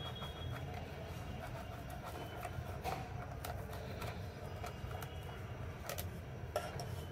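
Boiled egg rubbed over a small stainless steel hand grater inside a steel bowl: light scraping with scattered metal clicks, a sharper click near the end, over a steady low background rumble.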